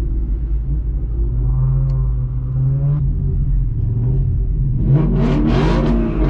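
Car engine droning steadily while cruising, with a faint engine rev rising and falling about two seconds in and a louder engine revving hard near the end.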